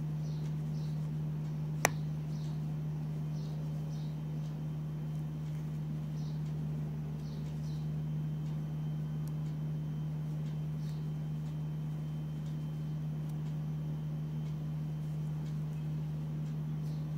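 A steady low hum, with faint short high-pitched chirps coming in pairs now and then and one sharp click about two seconds in.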